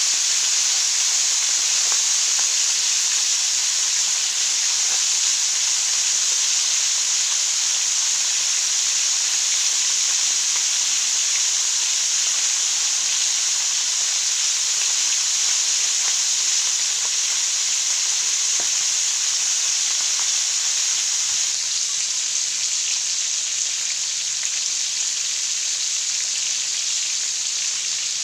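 Fish pieces shallow-frying in hot oil in a wok: a steady sizzling hiss with fine crackles, easing slightly about three-quarters of the way through.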